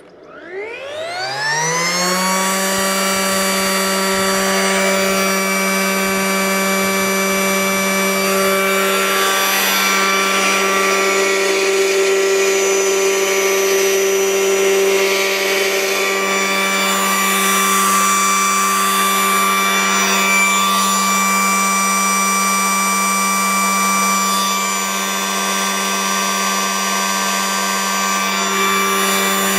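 Fuji Paudal sample mill (fine pulverizer) switched on: its electric motor and belt-driven grinding rotor spin up with a whine rising in pitch over about two seconds, then run at speed with a steady, loud, many-toned whine.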